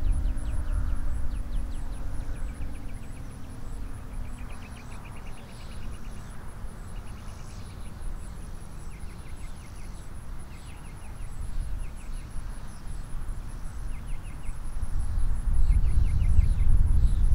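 Federal Signal Thunderbolt 1000T siren winding down to a stop, its falling tone fading out over the first few seconds. After that, low wind rumble on the microphone grows louder near the end. Over it run insects chirping: repeated short trains of rapid clicks and a steady high pulsing trill.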